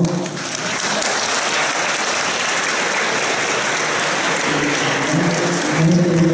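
Audience applauding, steady, fading out near the end.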